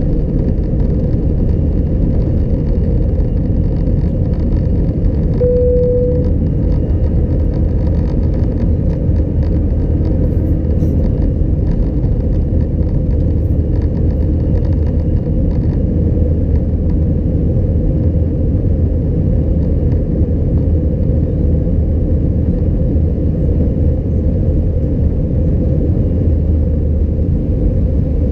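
Steady, loud rumble of an Airbus A320-211 heard from inside the passenger cabin: its CFM56 jet engines and the airflow over the fuselage. A short single tone sounds briefly about five seconds in.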